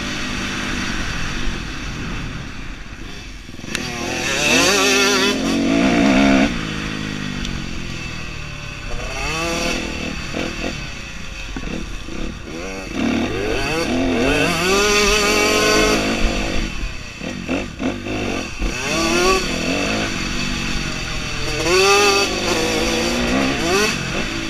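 Dirt bike engine heard from the rider's helmet, revving up and falling back several times as the throttle is opened and closed on a trail ride.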